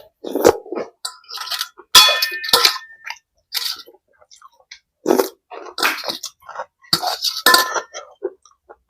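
Spoon clinking against a bowl while eating, several sharp strikes with a short metallic ring, the loudest about two seconds in and two more near the end.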